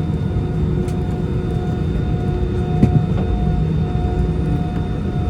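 Airbus A320 jet engines running with a steady, loud low rumble and a few steady tones above it.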